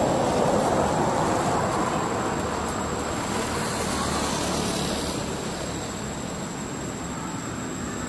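Road traffic passing: the steady noise of vehicles driving by on the road, including a pickup truck going past about four seconds in.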